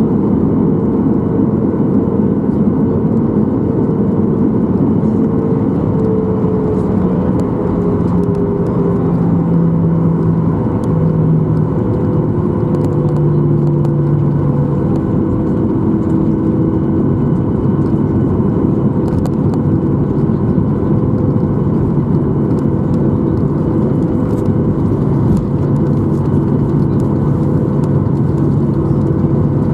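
Boeing 737-800 engines at low taxi power, heard from inside the passenger cabin: a steady rumble with whining tones that slowly drop in pitch over the first fifteen seconds or so, then hold steady.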